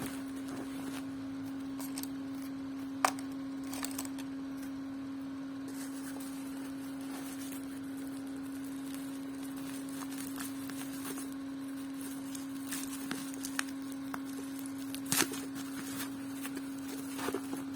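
A parcel being handled and opened, with scattered clicks and rustles of its packaging, the sharpest about three seconds in and again near the end, over a steady low hum.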